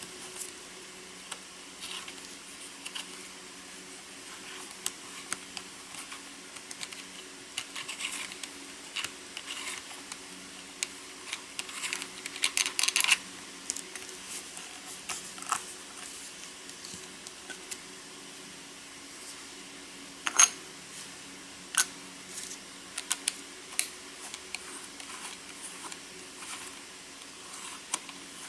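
Welding goggles being handled: scattered light clicks and rattles of the frame and lens as the lens is taken out and put back in, with a burst of clicks near the middle and a sharp click about twenty seconds in, over a steady low hum.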